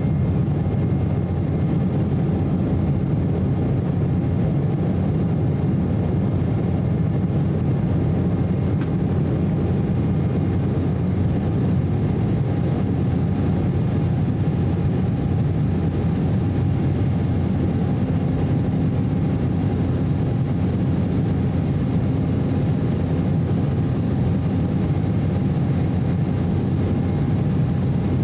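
Cabin noise of an Embraer E190 climbing after takeoff: a steady, deep rumble of its GE CF34-10E turbofan engines and airflow, with a faint steady whine.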